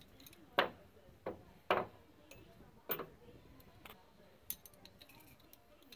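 Wrench working a suspension bolt and nut: about five sharp metallic clicks, spaced irregularly and loudest in the first three seconds, then fainter ticks.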